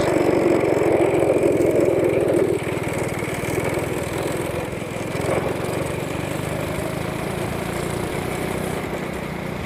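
Predator 212 single-cylinder four-stroke go-kart engine running, louder over the first couple of seconds and then settling to a steadier, lower level.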